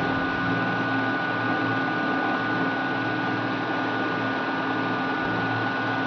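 Electric fan or blower running steadily: an even rushing hiss with a thin constant motor whine and a low hum, unchanged throughout.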